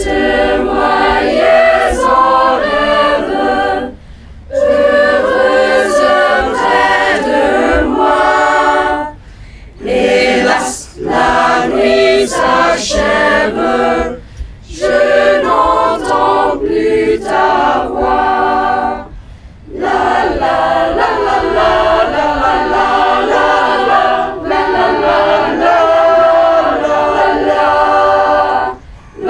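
A mixed youth choir of girls and boys singing a cappella, in phrases broken by short pauses.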